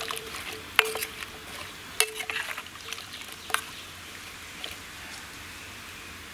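Steel spoon stirring cubes of elephant yam and plantain in curd in a stainless steel pot, the spoon clinking against the pot three times in the first few seconds, each clink ringing briefly, with soft wet scrapes between them.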